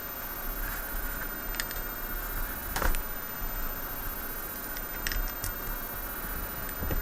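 A few faint, sharp clicks of a tool working at the retaining C-clip of a Master Lock Pro Series 6850 padlock, the clearest about three seconds in, over a steady low hiss.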